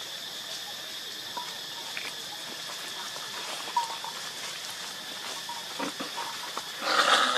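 A baby monkey moving over dry leaves on the forest floor: faint scattered rustles and ticks over a steady outdoor hiss, with a short, louder noisy burst near the end.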